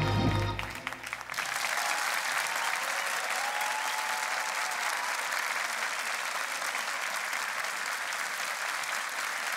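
The music ends on its final note about a second in, and an audience then applauds steadily.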